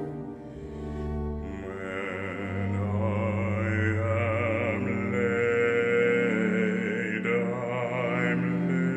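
A baritone singing a slow, sustained operatic line with vibrato over bowed cello and violin. The low strings play alone at first, and the voice comes in about a second and a half in.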